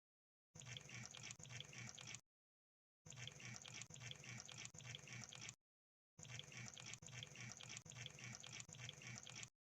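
Crab sound effect: faint, rapid clicking and crackling in three bursts of two to three seconds each, cut apart by dead silence.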